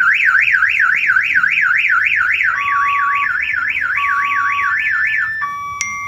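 Excalibur CarLink aftermarket truck alarm siren going off, triggered by a cab door being opened: a loud, fast rising-and-falling warble of about four sweeps a second, switching to steady held tones near the end.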